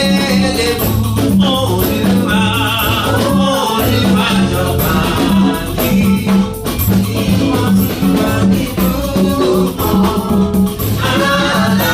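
Gospel praise-and-worship music: a band playing to a steady, even beat with singing voices.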